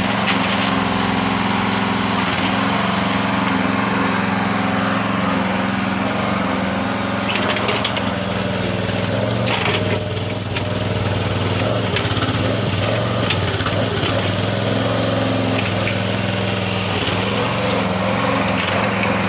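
Small engine of a U-Dig 30 mini backhoe running steadily, with a few faint clicks and knocks around the middle.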